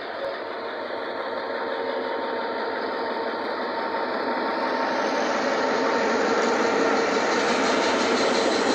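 GM G22 diesel-electric locomotive pulling out with a local passenger train, its engine running with a steady hum. The engine and running noise grow steadily louder and brighter as the locomotive and then its coaches pass close by.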